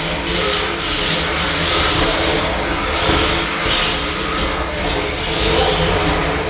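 Electric drive motors of small combat robots whining steadily, with repeated surges of scraping noise as the robots push and ram each other across the arena floor.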